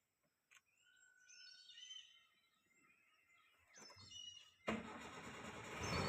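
Faint bird chirps, then near the end a sudden, loud, steady rush of noise sets in.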